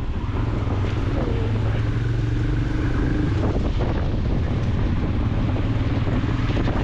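Motorcycle engine running at a steady speed while being ridden, a continuous low hum with road and wind noise.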